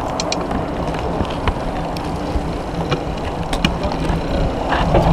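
Wind rushing over a handlebar-mounted camera's microphone on a moving road bike, with tyre noise and a few sharp clicks and rattles as the bike rolls over bumps in the pavement.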